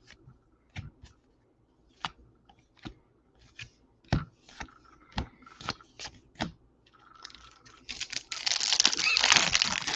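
Baseball trading cards being flicked through one at a time, each card giving a short sharp snap, about one or two a second. Near the end a foil card-pack wrapper crinkles and tears as the next pack is opened.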